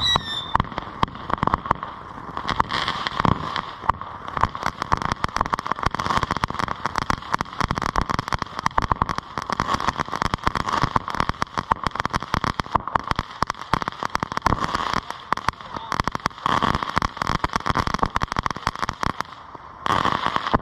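Ground firework fountain crackling: a rapid, continuous rattle of many small pops that breaks off briefly near the end.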